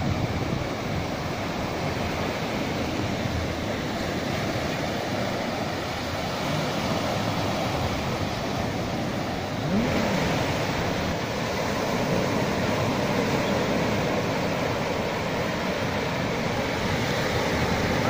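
Small sea waves breaking and washing up on a sandy beach: a steady surf wash, a little louder and brighter about ten seconds in.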